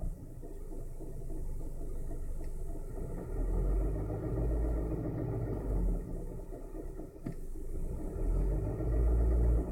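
Honda R18 engine running with a knocking, rumbling noise that comes from the air-conditioning compressor. The low rumble swells twice, and there is one short click about seven seconds in.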